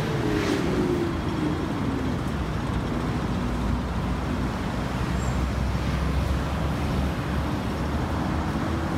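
Steady road-traffic rumble, with a passing vehicle's engine tone falling away in the first second.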